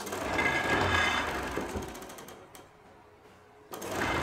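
Wood lathe starting up with a square timber blank mounted, its drive running with a high whine that dies away after about two seconds. It starts up again shortly before the end.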